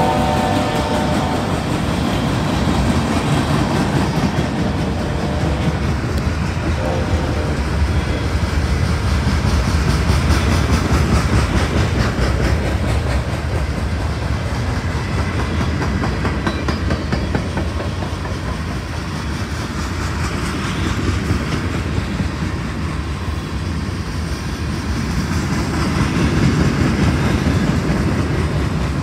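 Freight train rolling past: the locomotive's air horn chord dies away about a second in, then the steady rumble and wheel clickety-clack of the freight cars going by, with a brief horn note again around seven seconds in.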